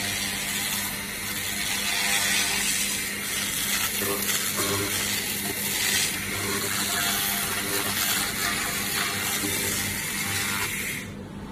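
Handheld laser cleaning gun ablating the surface of a metal fan wheel: a dense, steady hissing crackle that cuts off sharply near the end. A steady low hum runs underneath.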